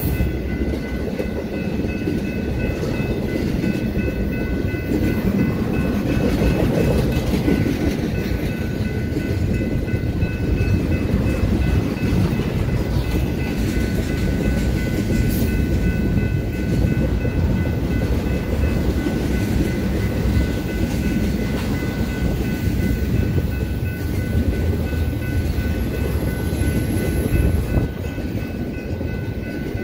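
Intermodal freight train of loaded container and trailer cars rolling past: a steady low rumble of steel wheels on rail. A thin, steady high whine rides over it.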